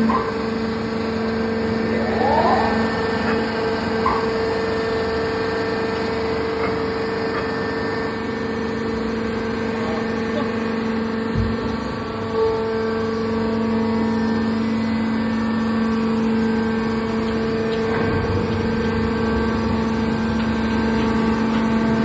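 Steady machine drone of a Y81K-630 hydraulic scrap metal baler running on test, a constant hum with two held tones. A single dull knock sounds about halfway through.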